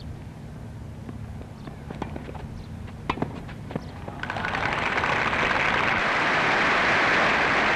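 A tennis ball struck several times in a rally, sharp pops at uneven intervals. From about four seconds in, crowd applause swells and stays loud.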